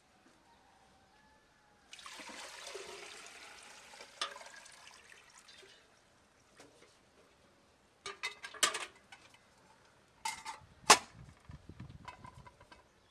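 Water poured from an aluminium pot into a metal samovar, a steady rush for about four seconds that tails off as the pour ends. Later come several metallic clinks and knocks, the loudest near the end, as the samovar's lid is handled and fitted.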